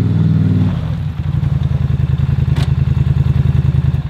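ATV engine running as the quad rolls up, its pitch dropping to a lower, fast-pulsing beat about a second in. A single sharp knock comes about two and a half seconds in.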